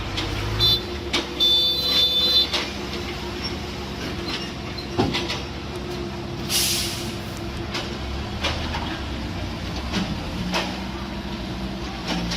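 Heavy diesel machinery running with a steady low engine hum and scattered metallic clanks. Brief high-pitched squealing comes in the first few seconds, and a short burst of air hiss about six and a half seconds in.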